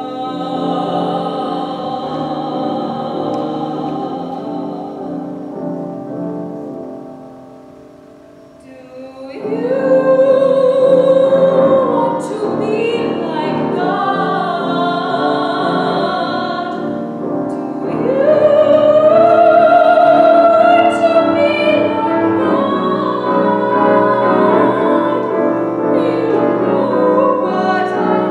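A woman singing classical art song in operatic style, with vibrato on long held notes and piano accompaniment. The music dips briefly about eight seconds in, then swells to sustained high notes, loudest around twenty seconds in.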